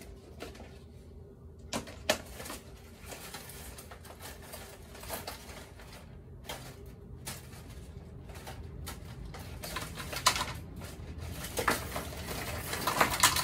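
Clicks, light knocks and rustling of small workshop objects being handled while searching for a longer piece of copper wire, growing busier and louder near the end. A faint steady hum runs underneath.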